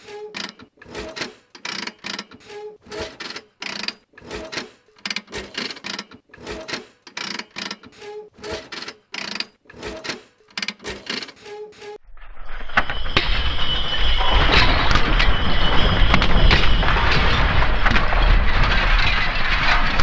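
Sound effect of metal cogs turning: a regular run of short mechanical clicks, about three a second. About twelve seconds in, it gives way to a louder, dense crackling noise.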